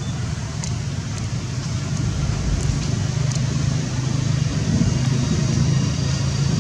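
A vehicle engine's steady low hum that grows louder about halfway through, with a few faint ticks.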